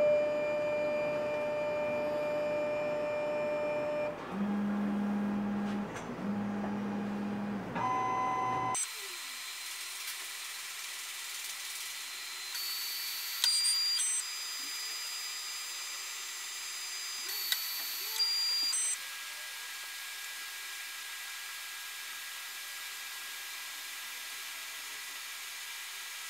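Plustek OpticFilm 120 film scanner running a scan, its motors drawing the film holder in and moving it through. The motor whine steps between several steady pitches, with a few short low hums in the first half. About nine seconds in it turns to a higher whine, with two louder stretches in the middle.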